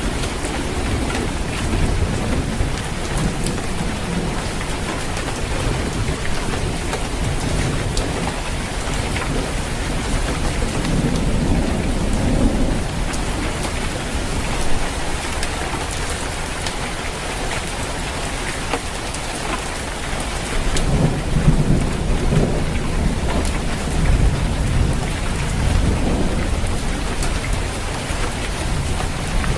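Steady rain falling on a roof, with low rolls of thunder about ten seconds in and again for several seconds from about twenty seconds in.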